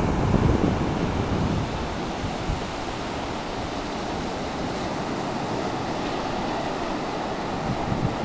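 Ocean surf washing onto the shore, a steady rushing hiss, with wind buffeting the microphone in the first second or two.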